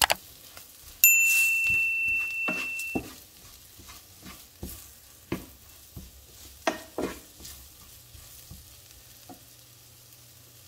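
Wooden spoon stirring and scraping vegetables in a frying pan over a light sizzle, in strokes every second or so that thin out over the last few seconds. About a second in, a loud chime-like ding rings out and fades over about two seconds.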